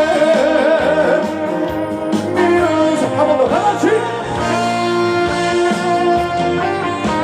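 Live trot band playing an instrumental interlude between verses: a lead melody with wavering, bending notes over steady bass.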